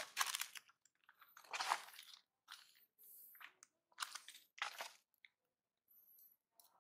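A series of irregular dry crunches, several close together in the first two seconds, more around four to five seconds in, with quiet gaps between them.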